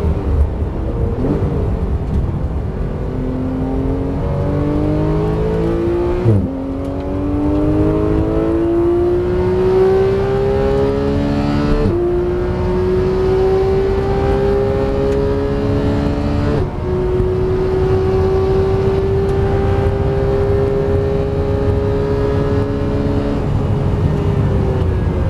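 Porsche 911 GT3's flat-six engine under hard acceleration, heard from inside the cabin. Its note climbs steadily through the gears, with three upshifts, each a sudden drop in pitch. Near the end the note falls away as the car slows.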